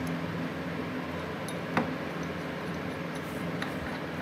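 Small metal clicks from a pipe wrench's hook jaw and adjusting nut being worked by hand, one sharper click just under two seconds in and fainter ones around it, over a steady low hum.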